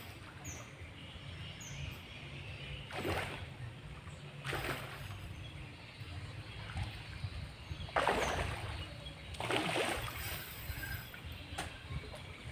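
A hooked fish splashing at the pond's surface as it is played on a rod, in four short splashes spread over several seconds, the loudest about two-thirds of the way through.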